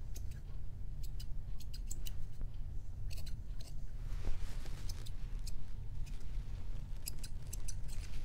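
Dog grooming shears snipping a Schnauzer puppy's leg and foot fur: quick snips in short, irregular runs, with pauses between them.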